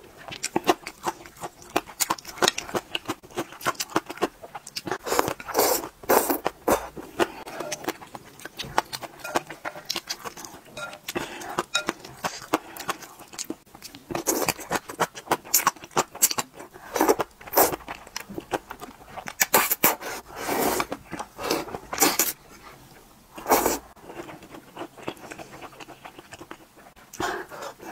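Close-up eating sounds of thick noodles in broth: short, irregular slurps and wet chewing, with clicking mouth sounds between them and a few longer, louder slurps.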